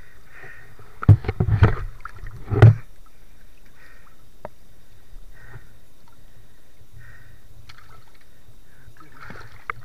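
Muffled underwater sound of a speared mahseer struggling on the spear shaft while it is grabbed by hand. A cluster of loud knocks and water thumps comes about a second in and ends near the three-second mark. After that there are only soft water sounds.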